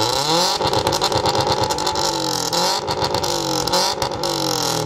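Subaru WRX STI's turbocharged flat-four boxer engine revved hard through a loud exhaust and held near the top of its range for a decibel reading. It climbs in the first half second, wavers with a few short dips and drops off near the end.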